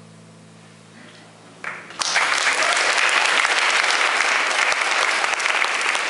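The last chord of a Selmer-Maccaferri-style gypsy jazz acoustic guitar dies away. About two seconds in, an audience breaks into loud applause.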